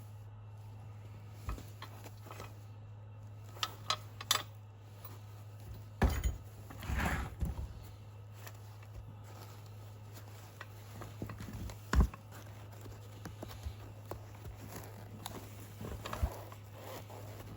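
Scattered knocks, clicks and short rattles of handling, the loudest about six and twelve seconds in, over a steady low hum.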